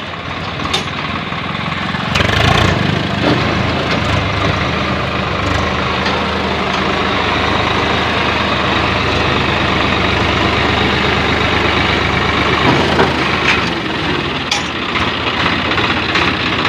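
Swaraj 744 XT tractor's three-cylinder diesel engine running. It gets louder about two seconds in, then settles into a steady idle.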